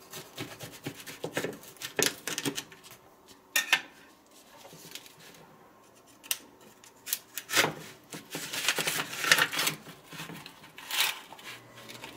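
A knife cutting through a baked pie crust, scraping and knocking against the foil pie tin and metal baking sheet, then a spatula scraping under a slice to lift it out. The sounds come as clusters of short scrapes and knocks rather than a steady noise.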